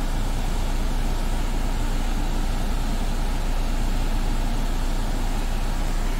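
Steady cabin noise of a stationary Opel Insignia: the climate-control fan is blowing on full cold over the engine idling, an even hiss with a deep hum and no change throughout.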